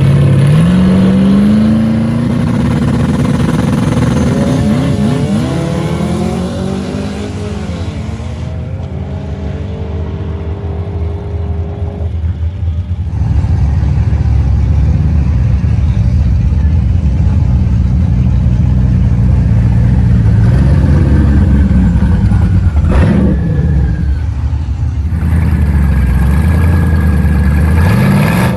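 Twin-turbo Camaro ZL1 launching hard off the line and accelerating down the drag strip, its engine pitch rising and then fading away. Later an engine runs steadily, and near the end it revs up again.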